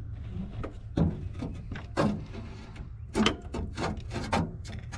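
Irregular metallic clicks and clunks of a wrench being worked at the crankshaft pulley, trying to turn over a seized engine.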